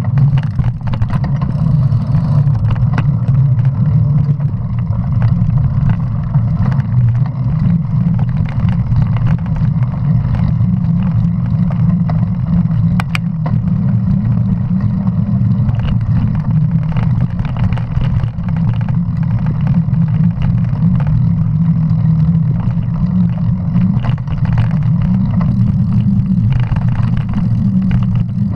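Mountain bike ridden fast on a road at night, heard from a camera on the bike: a steady, loud low rumble of wind on the microphone and tyres rolling, with scattered clicks and rattles from bumps, one sharp click about halfway through.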